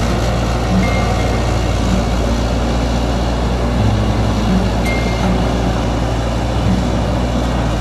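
Caterpillar hydraulic excavator's diesel engine running steadily under load as the tracked machine moves and works its boom on muddy ground, with two brief high squeaks, about a second in and near five seconds in.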